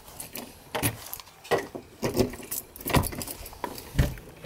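A light metallic jangle with a handful of irregular clicks and knocks.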